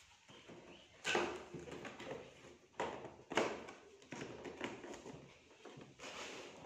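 A large cardboard box being handled and opened by hand: cardboard scraping and rubbing, with a few sharper knocks, the loudest about a second in and again around three seconds in.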